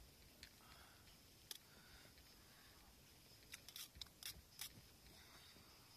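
Near silence, broken by about six faint, short clicks, most of them in the second half.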